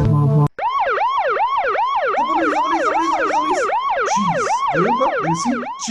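Siren sound effect from an animated cartoon, wailing rapidly up and down about three times a second, after a brief loud buzz at the start.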